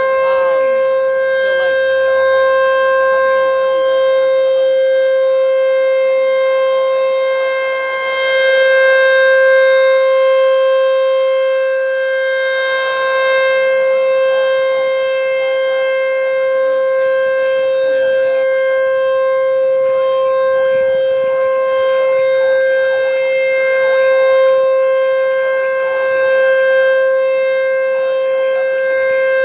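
American Signal T-128 outdoor warning siren sounding its steady test tone, one loud unwavering pitch that swells and fades a little in loudness.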